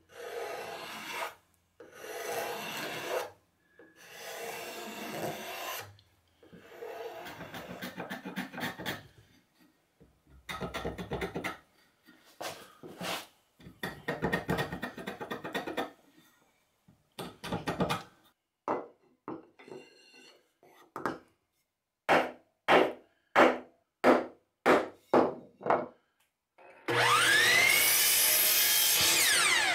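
A steel card scraper is drawn along a wooden mallet handle in a series of scraping strokes. Later a block plane takes short strokes off the end of a small wooden block, followed by a quick run of about eight sharp strokes. Near the end a miter saw spins up, cuts a small wooden piece and winds down, its whine rising and then falling.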